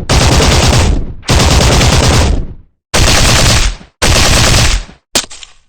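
Automatic gunfire sound effect: four bursts of rapid fire, each lasting under a second, with short pauses between them, then a single sharp shot near the end.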